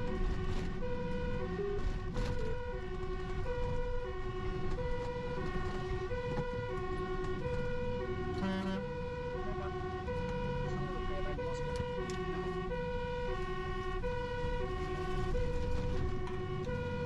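Fire truck two-tone siren, alternating steadily between a high and a low tone, with the truck's engine rumbling underneath, heard from inside the cab on an emergency run.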